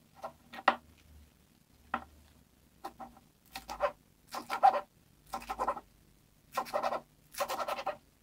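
A kitchen knife chops green onions on a plastic cutting board. A few single chops come first, then quick runs of chops from about three and a half seconds in.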